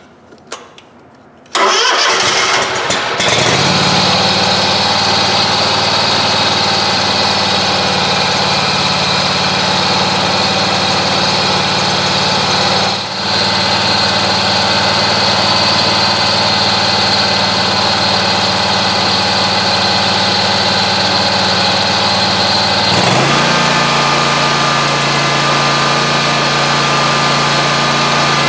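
Scag Tiger Cat zero-turn mower engine cranking on a jump box from a dead battery and catching about two seconds in, then running steadily. It dips briefly about halfway, and its note drops lower about 23 seconds in.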